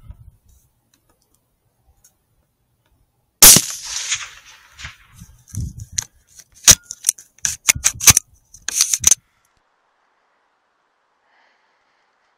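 A single Sako 85 Varmint .223 Remington rifle shot about three seconds in, very loud with a short echo. For the next few seconds, a run of sharp clicks and knocks as the rifle is handled.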